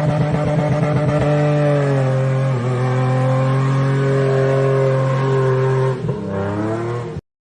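An off-road 4x4's engine revving under load: pulsing at first, then climbing to steady high revs and held there. The revs drop about six seconds in, and the sound cuts off suddenly near the end.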